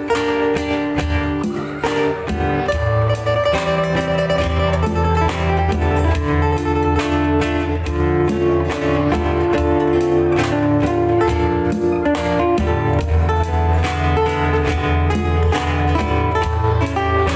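Two acoustic guitars playing a bolero's instrumental introduction together, plucked melody notes over chords in a steady rhythm, with no voice.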